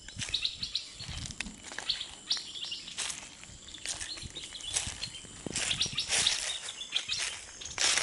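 Stripe-throated bulbuls chirping in short, repeated notes, with bursts of wing-flapping and leaf rustling as the trap cage holding a caught bird is handled and pulled out of the bush, loudest in the second half.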